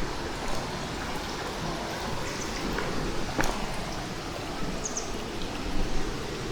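Mountain valley stream rushing steadily over rocks, with a few faint clicks and chirps over it.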